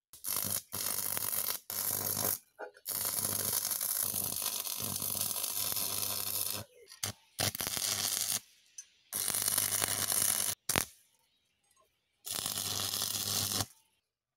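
Stick arc welding on steel: the arc crackles and sizzles in about five bursts of one to four seconds, each one starting and stopping abruptly, with a low hum under it.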